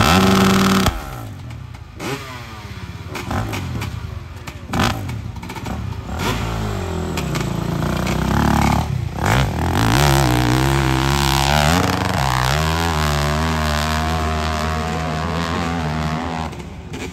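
Dirt bike engine revving in short blips at the start, then accelerating hard up a steep dirt hill, its pitch rising and dropping again and again as the rider works the throttle and gears.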